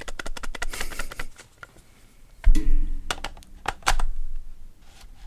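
Plastic clicks and rattles of an old Canon zoom lens being fitted onto a DSLR's lens mount and twisted until it locks, right up against a microphone. There is a quick run of clicks at first, a louder knock about two and a half seconds in, then a few single clicks.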